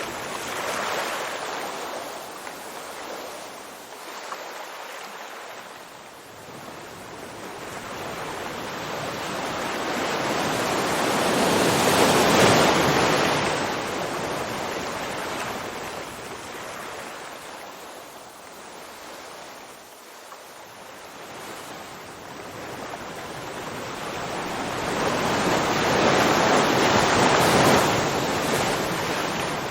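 Ocean surf washing in and drawing back in slow swells: one wave builds to its loudest about twelve seconds in and another near the end, with quieter lulls between.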